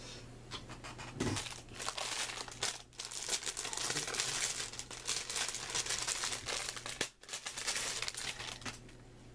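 Packaging crinkling and rustling as it is handled and opened, in irregular stretches with short breaks.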